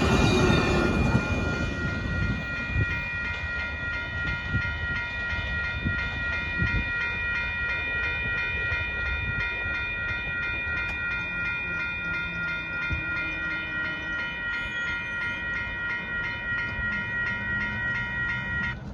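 Amtrak Texas Eagle passenger train rolling past, its low rumble strongest at first and easing as the cars go by. Over it a railroad crossing bell rings steadily and stops shortly before the end.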